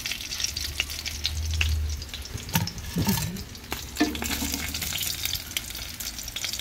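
Food frying in hot oil in a pan, sizzling with a steady crackle and many small pops. A couple of knocks from handling the pan come near the middle.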